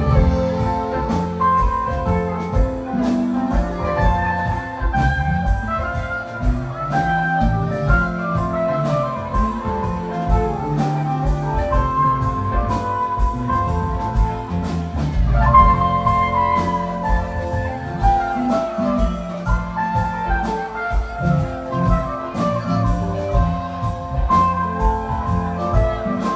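Live rock band playing an instrumental passage: an electric guitar lead line over bass and a drum kit keeping a steady beat.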